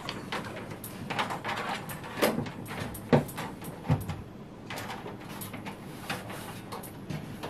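Cables and a small plastic box being handled while a network cable is plugged in and looped: scattered rustles and light clicks, with a few sharper knocks about two, three and four seconds in.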